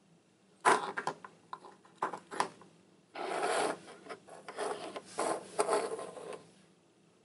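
Small plastic Paw Patrol Action Pack Pup figures tapped down and slid across a tabletop by hand: a few sharp clicks in the first couple of seconds, then scraping rubs from about three seconds in.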